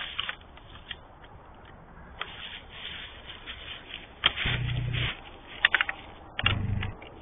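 Deer moving through dry fallen leaves, rustling with scattered sharp clicks. Partway through come two low grunts, each about half a second long and about two seconds apart, typical of a whitetail buck grunting.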